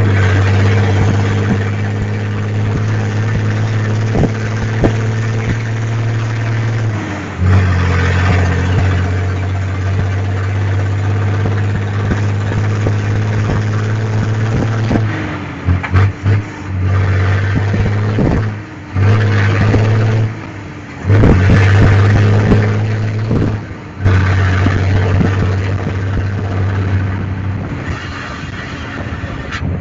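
Volkswagen Constellation truck's diesel engine running loud through a straight-pipe exhaust, with a deep steady rumble. Between about 15 and 24 seconds the sound breaks into a run of short surges and drops, and it runs a little quieter near the end.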